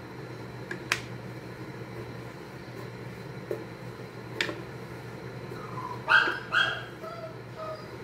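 A dog barks twice in quick succession about six seconds in, followed by a few fainter yips, over a steady low hum. Two faint clicks come before the barks.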